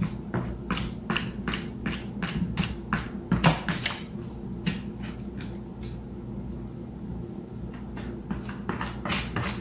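Cat pawing and clawing at a plastic storage bin: a quick run of hollow plastic taps and scratches, about two or three a second, thinning out in the middle and picking up again near the end.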